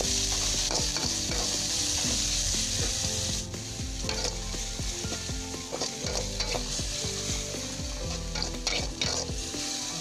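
Ground chili spice paste sizzling in hot oil in an aluminium wok, with a metal spatula scraping and tapping against the pan as the paste is stirred.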